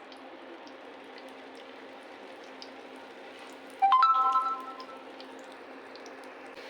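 Steady hiss of falling water. About four seconds in comes one sharp ringing clink, which dies away within a second.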